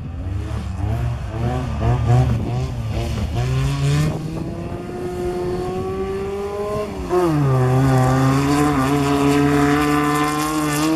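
Car engine revving: its pitch wavers up and down at first, then rises and holds steady. About seven seconds in it drops to a lower, louder steady note.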